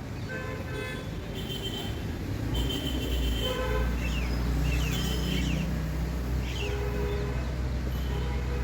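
Street traffic: a vehicle engine's low rumble with a few short horn toots.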